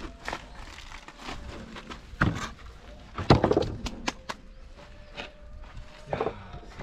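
Timber formwork boards being knocked and prised off set concrete: a series of sharp wooden knocks and cracks, the loudest about three seconds in.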